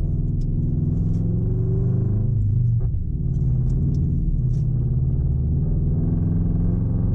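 Subaru BRZ's flat-four boxer engine running under way, heard from inside the cabin, its note drifting up and down with a brief dip about three seconds in.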